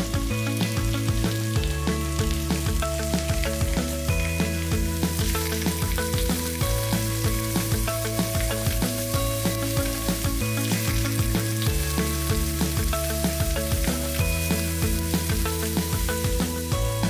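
Whole small squid sizzling as they pan-fry in hot oil over high heat, the sizzle starting as they hit the pan. Background music with steady low chords plays underneath.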